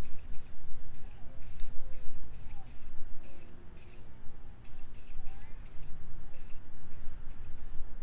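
Aerosol spray can of black paint hissing in short bursts, about two a second with a couple of brief pauses, as it coats a chrome car wheel rim.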